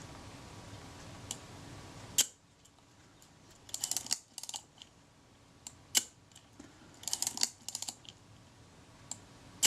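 Small metal clicks and quick ratcheting ticks from a Kodak Retina IIa's film advance and shutter release mechanism as it is worked by hand. There is a sharp click about two seconds in, quick clusters of ticks around four and seven seconds, and single clicks near six and nine seconds. The mechanism is being cycled to check that the shutter releases at the right point in the film advance travel.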